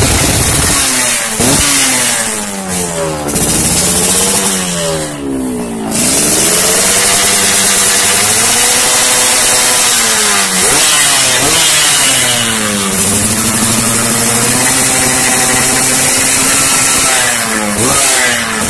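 Yamaha RX-King two-stroke single-cylinder engine revving through a racing-tuned, standard-look exhaust. The throttle is blipped sharply several times, and twice the revs climb, hold high for a few seconds, and drop back.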